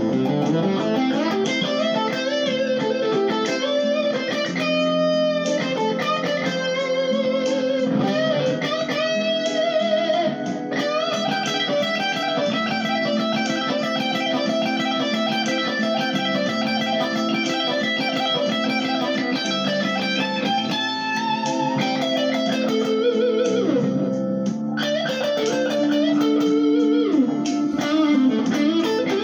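Gibson Les Paul electric guitar playing a minor blues lead solo, with bent notes and vibrato on sustained notes.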